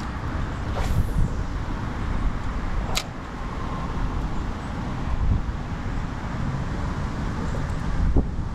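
Wind buffeting the microphone, a steady low rumble, with one sharp click about three seconds in.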